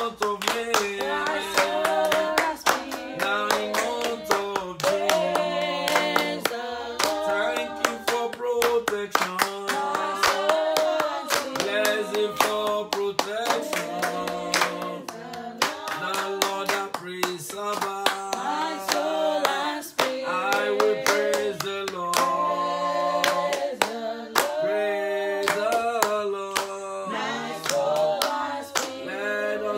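A man singing a worship song unaccompanied while clapping his hands in a steady beat, about two claps a second.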